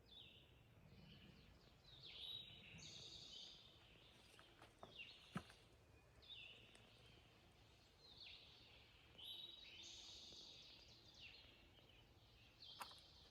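Faint woodland birdsong: a bird repeating short high song phrases every second or two over quiet forest ambience, with a sharp click about five seconds in.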